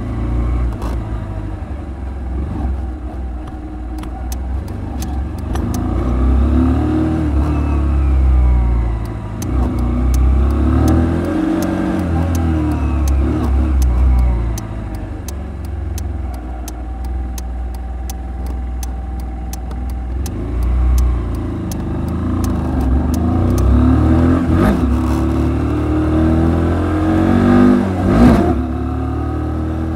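Kymco Quannon 125's single-cylinder four-stroke engine under way, its pitch rising and falling several times as the rider accelerates, shifts and eases off. Heavy wind rumble on the helmet-mounted microphone runs underneath.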